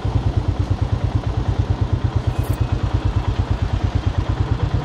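Royal Enfield Himalayan 450's single-cylinder engine running steadily, an even, rapid train of low thumping firing pulses.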